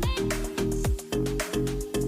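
Upbeat background music with a steady beat, low bass notes and sharp percussion strikes.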